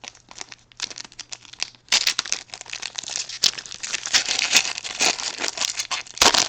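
A baseball card pack's wrapper being torn open and crinkled by hand: faint scattered crackles at first, then dense, louder crinkling from about two seconds in, with a short loud burst near the end.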